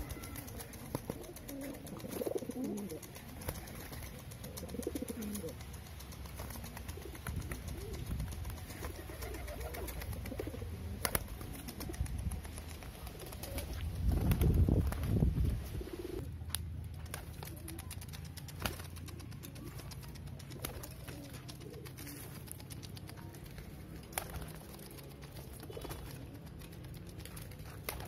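Domestic pigeons cooing, with low wavering coos clearest in the first few seconds. This is the cooing of a freshly paired cock pigeon driving his hen. About halfway through there is a louder low rustle, with scattered sharp clicks through the rest.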